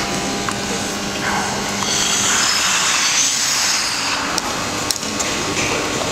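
Steady mechanical hum of an indoor ice rink. Over it comes a smooth hiss of skate blades gliding on the ice, swelling about a second in and fading about four and a half seconds in. A couple of faint clicks follow near the end.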